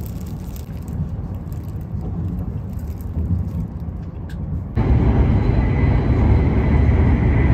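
Running noise inside a Shinkansen carriage at speed: a steady low rumble. About five seconds in it jumps suddenly louder, and a thin steady whine joins it.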